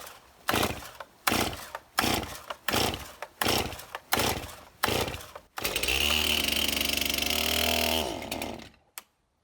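Stihl MS271 Farm Boss two-stroke chainsaw being cold-started on full choke: about seven quick recoil-starter pulls, then the engine catches about six seconds in and runs for a couple of seconds before it winds down and stalls. The owner thinks the locked chain brake makes it stall faster in the cold.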